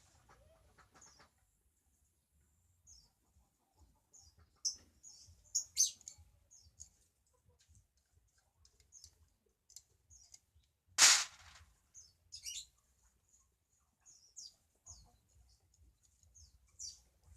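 Small birds chirping in short, high, scattered calls, with one loud sharp clatter about eleven seconds in.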